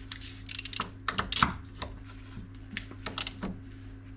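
Hand ratchet wrench tightening a rear suspension bolt by hand: short runs of sharp metallic clicks at uneven intervals, with a low steady hum underneath.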